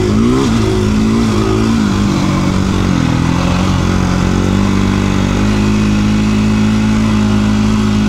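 KTM 350 EXC-F single-cylinder four-stroke dirt bike engine running at speed on a sandy track. Its pitch rises and falls with the throttle in the first few seconds, then holds steady.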